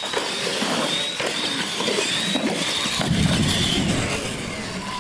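Two radio-controlled monster trucks launching from the start line and racing side by side across a concrete floor, their motors whining high with wavering pitch. The sound grows fuller about three seconds in.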